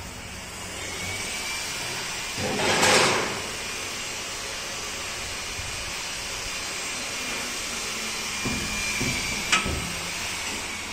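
Hinged sheet-steel door of an electrical switchgear panel being handled and swung closed: a rushing scrape about three seconds in, a few low knocks, then a sharp metallic click near the end, over steady background noise.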